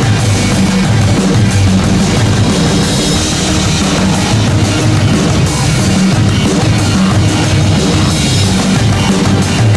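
Loud background rock music with a drum kit, playing steadily.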